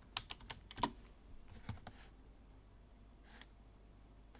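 Faint computer keyboard and mouse clicks: a quick cluster of taps in the first second, then a few single clicks spaced out over the next few seconds.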